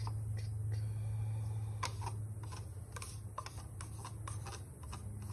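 Wooden craft stick clicking and scraping against the rim and inside of a thin plastic cup as paint is scraped out of it, a string of small irregular ticks, over a steady low hum.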